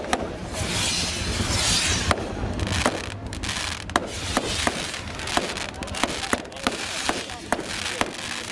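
Fireworks going off: a string of sharp bangs a fraction of a second to about a second apart, with a burst of crackling shells about two seconds in.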